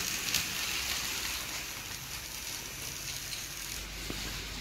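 Battery-powered toy train locomotive with three small electric motors running along the track, a steady hissing whir of its motors and gears that fades as it moves off.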